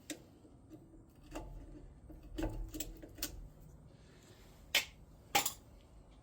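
Scattered metallic clicks and light knocks of hand tools working on a truck's front wheel hub, with two sharper clicks about five seconds in, half a second apart.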